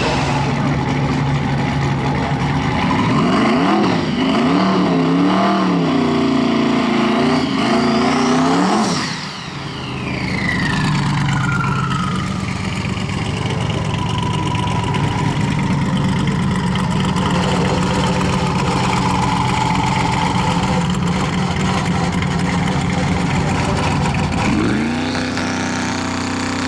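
Drag race car engines revving up and down for about nine seconds, then a high whine falling steadily in pitch over several seconds, followed by a steady idle until the revs climb again near the end.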